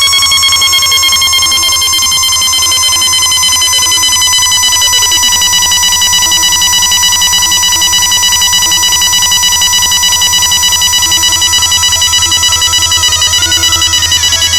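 DJ sound-check track: a loud, sustained electronic horn-like test tone near 1 kHz, rich in overtones, sinking slightly in pitch, over a continuous low bass drone.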